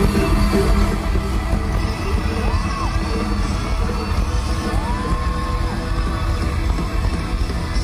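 Live band music played loud over a concert PA, heard from within the audience, with two short sliding high notes partway through, the second longer.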